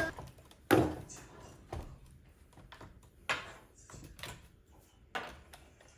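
Scattered sharp clicks and taps of a screwdriver and small screws on the head unit's metal mounting bracket as the bracket screws are removed, the loudest about a second in.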